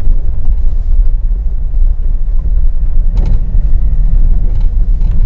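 Steady low rumble of a running Nissan Terrano heard inside the cabin, with faint knocks about three seconds in and near the end. This is the dashboard rattle being hunted, which comes from loose bolts on a metal strip behind the dashboard.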